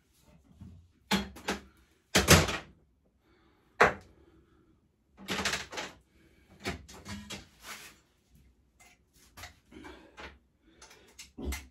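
Irregular metallic knocks and clatters of hand tools and sockets being handled and set down on a workbench: a few louder clunks in the first half, then a run of lighter clicks and taps.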